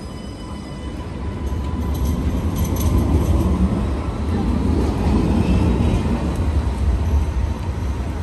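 A light rail tram passing close by on the street, a steady low rumble that builds over the first couple of seconds and stays loud.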